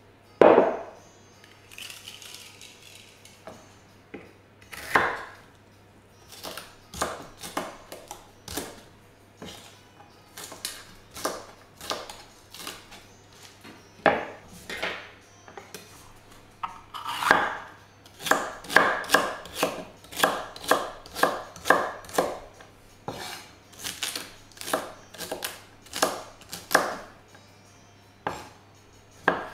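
Kitchen knife cutting vegetables on a wooden cutting board: a series of sharp knocks, with a loud one right at the start. They come sparse and irregular at first, then in a quicker run of about two cuts a second in the middle. A faint steady low hum runs underneath.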